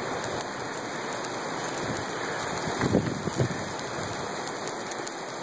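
Hail and rain pelting asphalt: a steady hiss dotted with sharp ticks of hailstones striking, with a couple of louder knocks about three seconds in.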